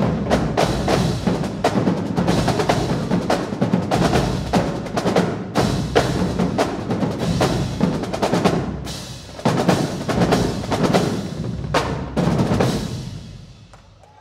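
Marching drumline playing a fast, dense cadence of snare and bass drum strokes. It drops out briefly about nine seconds in, comes back, and stops about a second before the end, with the last hits ringing away.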